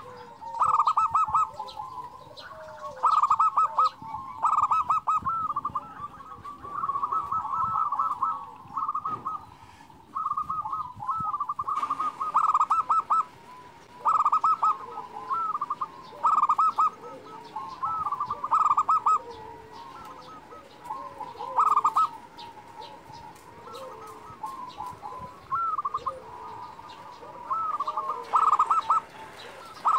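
Zebra dove (perkutut) singing: repeated phrases of rapid, staccato cooing notes, a phrase every second or two.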